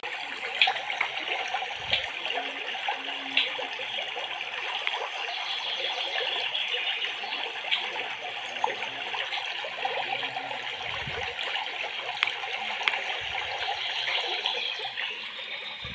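Underwater water sound: a steady rushing hiss with scattered small clicks.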